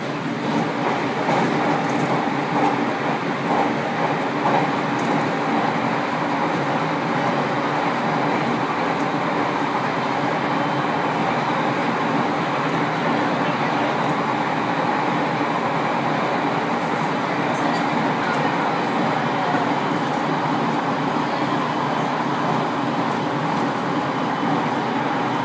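JR Kyushu 815 series electric train running along the line, heard from inside its cab: a steady noise of wheels on rail and the running gear.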